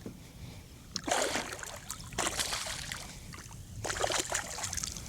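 Water splashing in three loud bursts as a hooked small redfish thrashes at the surface beside the kayak while being landed.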